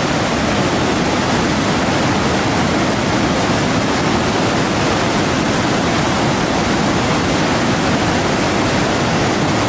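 Steady rush of the Huron River in spring flood, swollen with rain and snowmelt, pouring over rock ledges in whitewater rapids.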